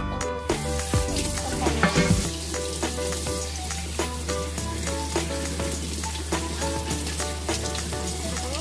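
Kitchen tap water running onto winter melon pieces in a plastic colander, a steady hiss that starts just after the beginning, with background music under it.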